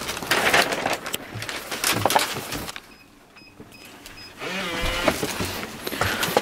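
Rustling and wind on the microphone as a cellophane-wrapped flower bouquet and gift bag are carried, with a few clicks and bumps. About halfway there are several short high electronic beeps, and then a front door is handled and opened.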